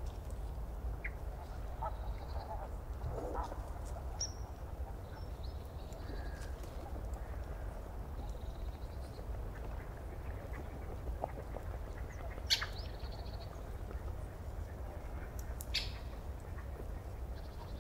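Bird calls over a steady low hum, with two sharp clicks in the second half.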